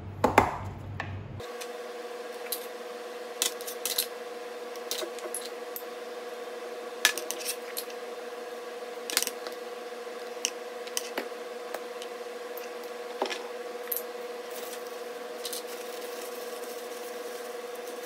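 Kitchen handling sounds while seasoning vegetables in a plastic colander: scattered clicks and taps of spoons, jars and a vinegar bottle, and the rustle and squish of a plastic-gloved hand mixing the salad. A steady electrical hum sets in about a second and a half in and runs under them.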